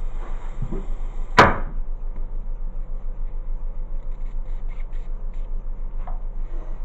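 A single sharp thump about a second and a half in, over a steady low hum that pulses evenly about five times a second.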